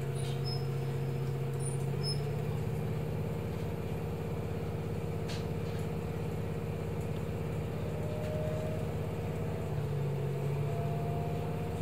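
Diesel railcar's engine and running noise heard inside the carriage as the train pulls away, a steady hum with a faint whine that rises slowly in pitch in the second half as it gathers speed.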